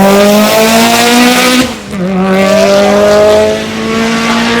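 Car engine accelerating hard: its note climbs steadily through one gear, dips briefly at a gear change about two seconds in, then climbs again in the next gear.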